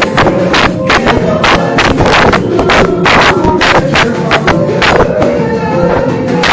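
Loud, upbeat praise music for dancing, with a fast, steady drum beat of about four strikes a second.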